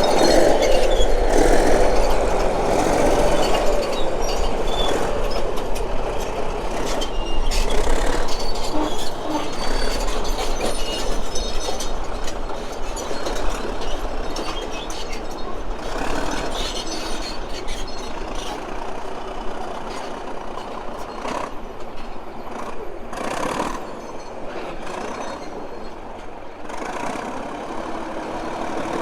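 Caterpillar D8H crawler bulldozer working, with a steady diesel engine and continual metallic clanking and rattling from its tracks and gear. The noise eases off a little in the second half.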